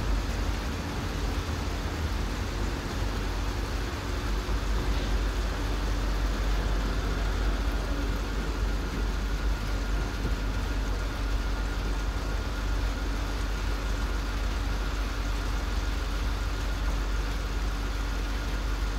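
TGV Lyria Euroduplex electric high-speed train pulling away from the platform: a steady low rumble with a constant low hum, joined about a third of the way in by a faint higher steady tone.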